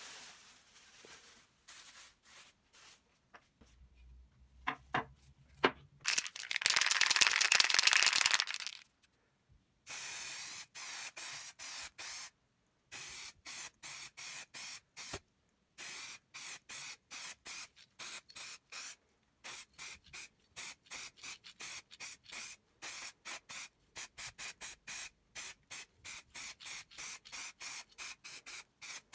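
Spray paint hissing: one long spray of about two and a half seconds, then many short spurts in quick succession that start and stop abruptly. A few faint clicks come before the first spray.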